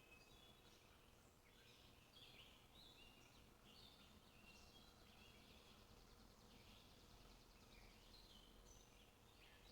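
Faint, continuous bird chatter: many short, high chirps and whistles overlapping throughout, over a low background hiss.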